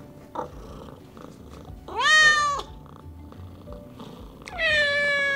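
Two meows from ragdoll cats: a short one about two seconds in that rises and falls in pitch, and a longer, steadier one near the end.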